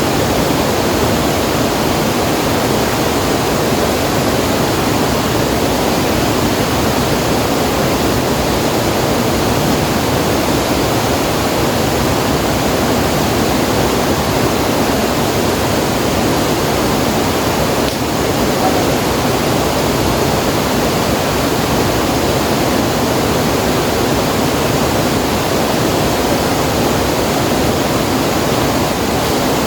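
River water rushing, a loud, steady, unbroken noise.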